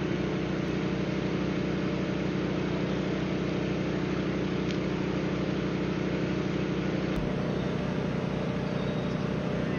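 A steady mechanical hum over a constant hiss, like a running engine. The hum shifts in tone about seven seconds in.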